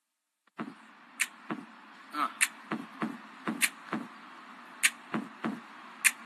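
Opening of a live band recording, starting about half a second in: sharp hits about every 1.2 seconds with softer low drum thumps between them, over a steady hiss.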